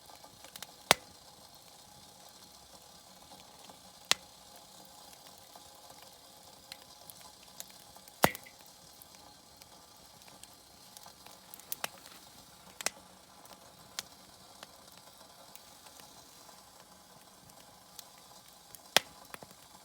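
Wood fire crackling, with a sharp loud pop every few seconds and smaller crackles over a low steady hiss.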